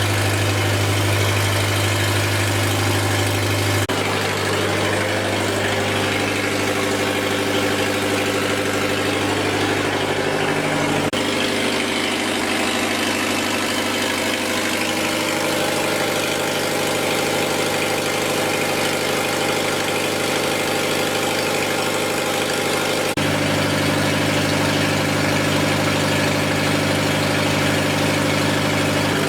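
Lister diesel generator engine running steadily under a heater load test, with an even low throb; its tone shifts abruptly about 4, 11 and 23 seconds in.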